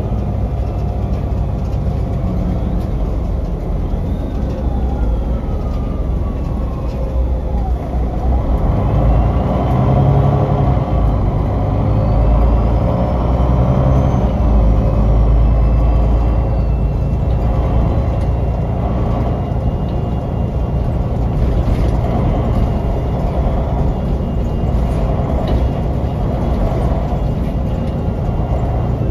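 MAN NL263 Lion's City city bus heard from inside the passenger cabin while driving: its MAN D2866 inline-six diesel runs with a steady low rumble. A drivetrain whine falls, then rises in pitch to a peak about halfway through and falls again, as the bus picks up speed and the sound swells in the middle.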